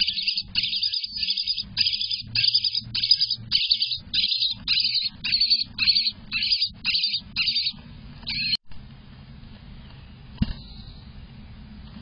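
Eastern bluebird nestlings, about 12 days old, begging for food: a fast series of short, high calls, about three a second. The calls stop abruptly about two thirds through, leaving a faint low hum and one short knock.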